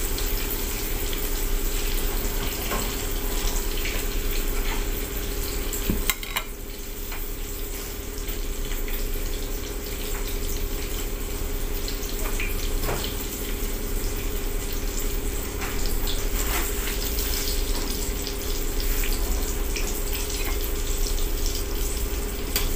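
Eggplant omelette frying in oil in a small pan: a steady sizzle with scattered pops and crackles.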